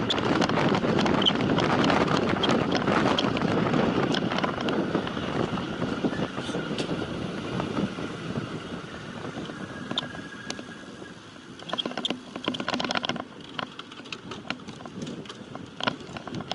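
Wind rushing over the microphone and road noise while riding a time-trial bike at speed. It grows quieter about halfway through, and a few short clicks follow near the end.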